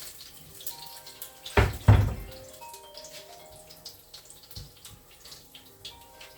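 Two loud knocks in quick succession about a second and a half in, among light clicks and clatter, over faint background music.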